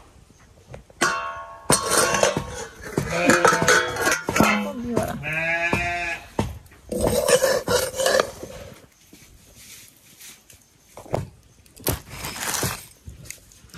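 Goats bleating a few times, wavering calls, among scattered clicks and knocks.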